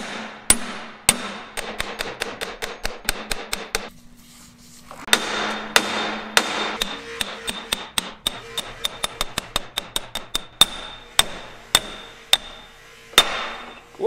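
Hammer blows on the end of a steel drift bar, driving a stuck part out of a large steel gear, each strike ringing metallically. A few spaced blows and a short pause are followed by a quick run of about four or five blows a second, then slower single blows near the end.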